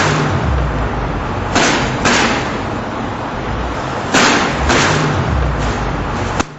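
Traffic crossing a self-centering bar and cover plate seismic expansion joint: the metal cover plate bangs loudly as wheels roll over it, mostly in pairs about half a second apart, over a steady traffic rumble. This banging is the joint noise that a cover-plate expansion joint makes under traffic.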